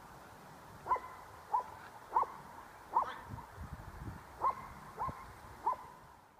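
A dog barking: seven short, sharp barks at uneven intervals, the first about a second in and the last near the end.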